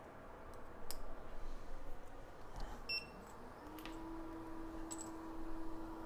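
An electronic beep from bench equipment about three seconds in, then a small motor spinning up with a rising whine that settles into a steady hum. A short higher beep comes about two seconds later, with a few faint clicks.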